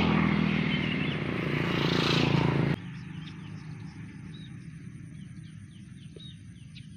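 A motor engine running loud and close, swelling, then cut off abruptly about three seconds in. After that, a quieter background with a low hum and small birds chirping.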